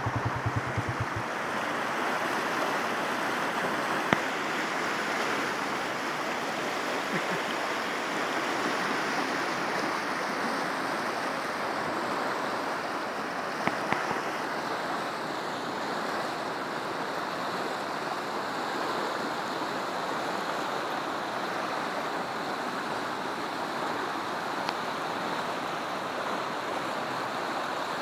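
Muddy floodwater rushing and churning over a concrete edge: a steady rush of flowing water. Brief knocks from handling the phone about four seconds in and again near the middle.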